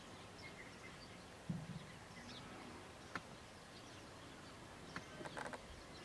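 Faint outdoor ambience with scattered short chirps from distant small birds. A low thump comes about a second and a half in, a single click around three seconds, and a quick run of clicks near the end.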